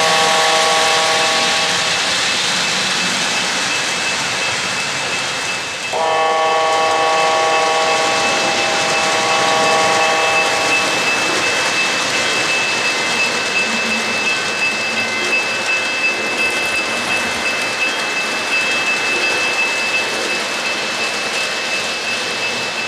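O-gauge model train rolling steadily along three-rail track while its onboard sound system blows a horn chord twice: a short blast at the start and a longer one of about five seconds, starting about six seconds in.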